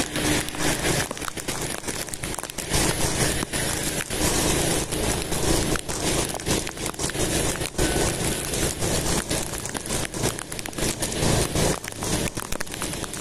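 Steady noise of riding a motorbike through light rain on a wet road, with frequent crackles on the microphone from wind and raindrops.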